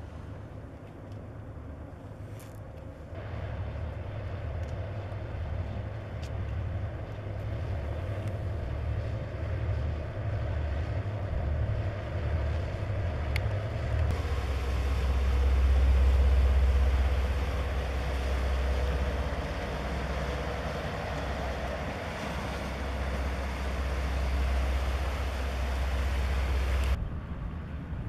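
Low, steady rumble of an offshore crew-transfer catamaran's engines with a rushing hiss of water and wind. The hiss sets in about three seconds in, the rumble grows heavier about halfway through, and both drop away suddenly near the end.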